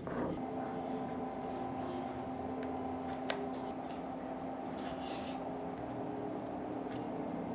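Small DC motor of a homemade mini rotary drill running at a steady speed with a constant whine, with one light tick about three seconds in.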